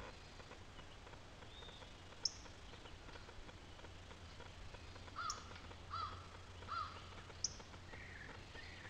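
Wild birds calling: three short arched calls in quick succession about five seconds in, with a couple of sharp, very brief high chips and other faint bird notes. A faint steady low hum runs underneath.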